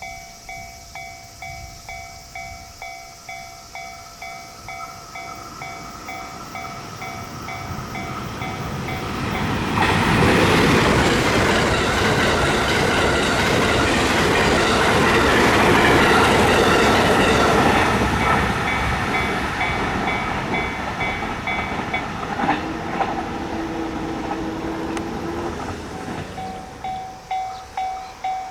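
Japanese level crossing's electronic warning bell dinging in a steady rhythm. A train passes loudly over the rails from about ten seconds in to about eighteen seconds, drowning the bell, with clickety-clack of wheels on rail joints. Near the end the bell stops, then starts ringing again.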